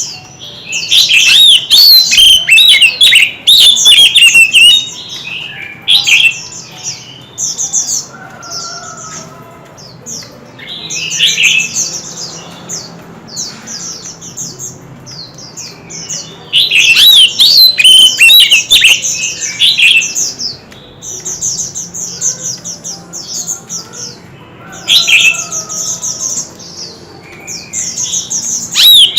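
White-rumped shama singing: several loud bursts of rapid, varied, warbling song, with runs of short repeated high notes between them.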